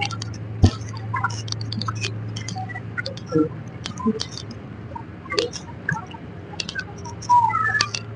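Footsteps of people walking on a dirt ground, a scatter of irregular light clicks and scuffs, over a steady low hum.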